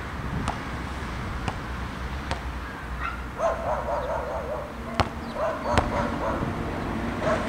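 Basketball bouncing on a hard outdoor court, a few sharp slaps, the loudest two near the end, over wind rumbling on the camera's built-in microphone. A run of short high yelps comes about halfway through.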